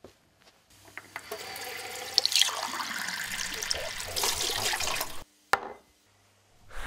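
Kitchen tap running into a stainless steel sink, the water splashing around hands being washed under the stream. It starts just under a second in and cuts off abruptly about five seconds in, followed by a single sharp click.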